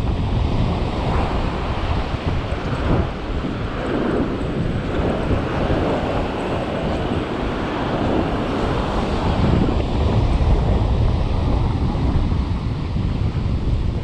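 Wind buffeting the microphone with a steady low rumble, over the wash of surf breaking on the beach, which swells and fades in waves.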